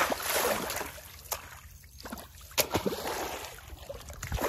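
Muddy water splashing and sloshing as a person wading waist-deep drives a pole-mounted metal fishing frame through it. There are two surges of splashing, one at the start and another about two and a half seconds in, with lighter lapping between them.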